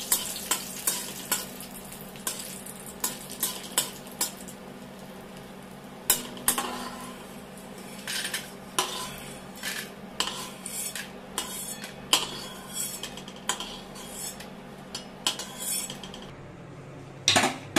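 A metal spoon scrapes and clinks irregularly against an aluminium kadhai and a steel plate as fried lentil dumplings are scooped out of hot mustard oil. A faint sizzle of the oil runs underneath, over a steady low hum that stops about two seconds before the end.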